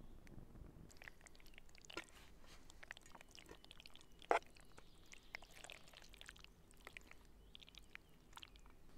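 Pasta in meat sauce being spooned out of a steel pot onto an enamel plate, with wet squelching, scraping and light clinks of the metal spoon. There is one sharp clank of metal on the plate a little after four seconds in.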